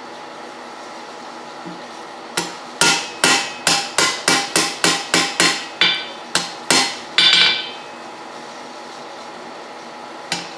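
Blacksmith's hand hammer striking steel on an anvil: a run of about fourteen blows at roughly three a second, starting a couple of seconds in, each with a short metallic ring.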